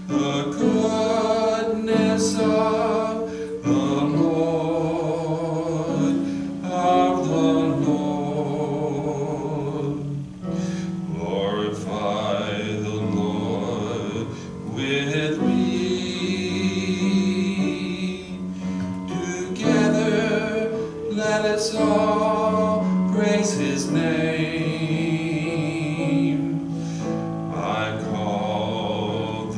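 A church hymn sung with instrumental accompaniment, in long held notes that waver slightly.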